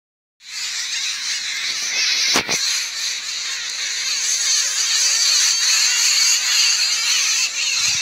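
A dense chorus of many birds chirping and calling at once, continuous and loud. Two knocks come close together a few seconds in.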